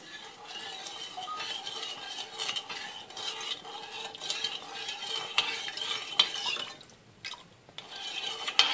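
Spoon stirring sugar syrup in a saucepan, scraping and clicking against the pan as the sugar dissolves, with a brief pause about seven seconds in.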